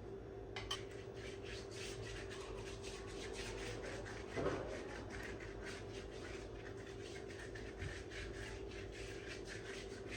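Quick, rhythmic rubbing strokes, about five a second, over a steady low hum, with one louder thump about four and a half seconds in.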